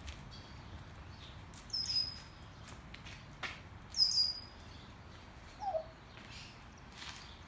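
A small bird chirps twice, short high-pitched calls about two seconds apart, over faint scattered clicks and a low outdoor background, with one short lower falling note near the end.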